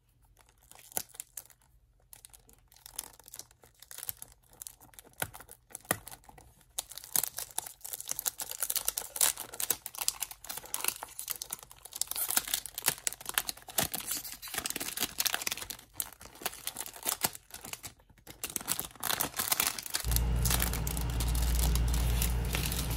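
Clear cellophane wrap being peeled and torn off a perfume box, crinkling and crackling in quick irregular bursts. The crackles are sparse at first and get busier after the first several seconds.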